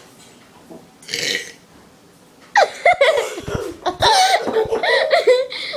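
A person burping the alphabet: one long burp, loud and lasting nearly three seconds, starting about two and a half seconds in, its pitch bending and breaking as letters are shaped through it. A short breathy hiss comes about a second in.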